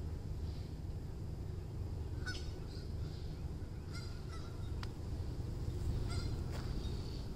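Geese honking, short calls in small groups several times, over a steady low rumble.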